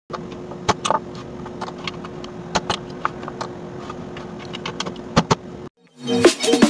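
Small metal screws and clamps clinking in a plastic dish and a magnetic contactor's parts being handled: scattered sharp clicks over a steady hum. Near the end the sound cuts out briefly and electronic intro music starts.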